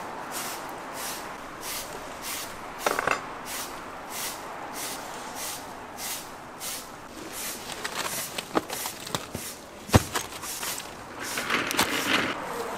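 Kitchen work at a sundae stall: a regular run of short scraping strokes, about two or three a second, over a steady background hum, broken by a few knocks and clatters, the loudest about ten seconds in and a burst of clattering near the end.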